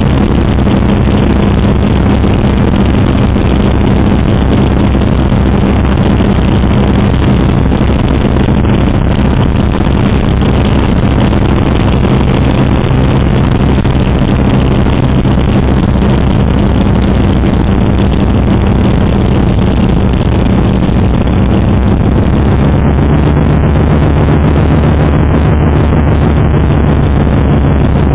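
Cabin noise of a Britten-Norman Islander's two propeller engines: a loud, steady drone on landing approach. The engine note shifts slightly about 22 seconds in.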